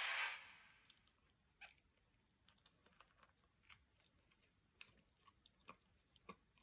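Faint chewing of a small slice of bread spread with crunchy peanut butter: a short hiss right at the start, then scattered soft, sticky clicks of the mouth working the paste.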